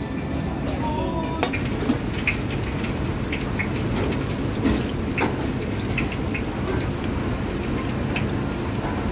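Hot oil sizzling in a deep wok as pieces of food deep-fry, with many small scattered pops and crackles; the sizzle comes in about a second and a half in.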